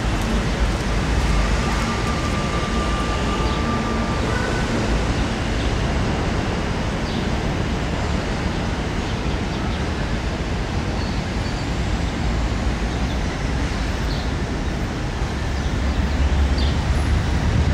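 Steady outdoor background noise, an even rumble and hiss with no distinct events, swelling slightly in the low end near the end.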